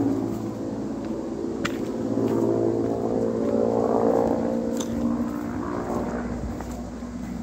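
Rosenbauer Fox 4 portable fire pump engine running at a steady speed, with two or three sharp clicks.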